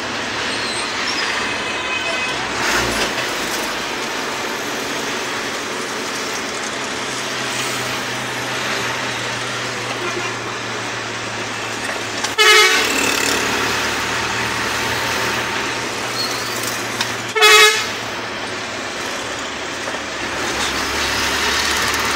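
Hino FB truck's diesel engine running steadily with road noise while driving, heard from inside the cab. A horn gives two short, loud blasts, one about halfway through and another about five seconds later.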